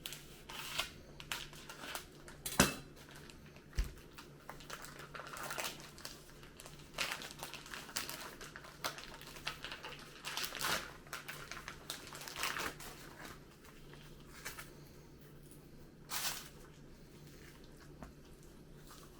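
Plastic packaging crinkling and rustling in short, irregular bursts as a whole raw chicken is unwrapped for quartering, with one sharp knock about two and a half seconds in.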